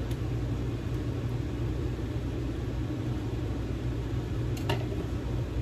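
A steady low mechanical hum, with a single light clink of a spoon against a saucepan near the end.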